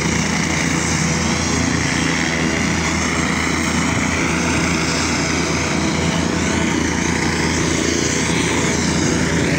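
Air ambulance helicopter running on the ground with its rotors turning: a loud, steady mix of engine whine and rotor noise.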